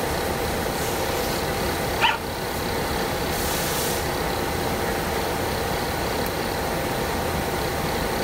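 Steady background hum and hiss, with one short rising squeak about two seconds in.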